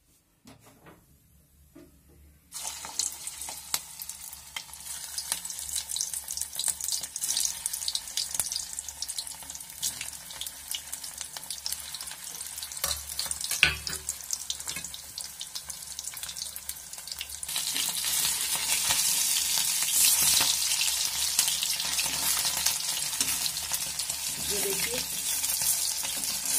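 Potato cutlets deep-frying in hot oil in an iron kadhai: a dense crackling sizzle that starts suddenly about two and a half seconds in and gets louder past the halfway point, with a single sharp knock about fourteen seconds in.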